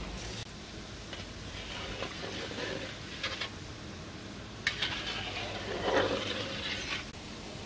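Semolina gulab jamun balls sizzling as they deep-fry in hot oil in a metal kadai, while a perforated slotted spoon stirs them and now and then scrapes and knocks against the pan. The scraping is loudest about five to six seconds in.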